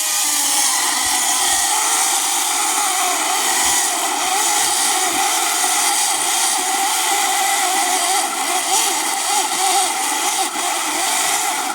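Chainsaw running at full throttle, cutting through a thick log, its pitch wavering under load. It cuts off abruptly at the end.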